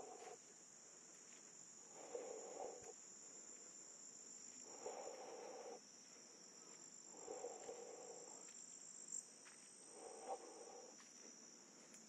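Faint, steady, high-pitched insect chorus of crickets or similar insects trilling without a break. A softer, lower sound comes and goes about every two and a half seconds.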